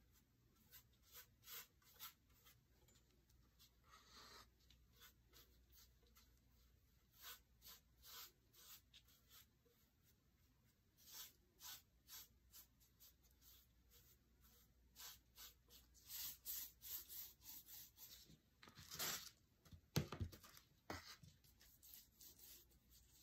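Faint swishing strokes of a chip brush laying chalk paint onto a lamp, one after another, with a louder knock near the end.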